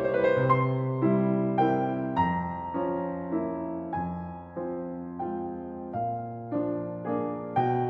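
Solo piano playing a slow, gentle instrumental Christmas piece, with a new note or chord struck about twice a second and left to ring out.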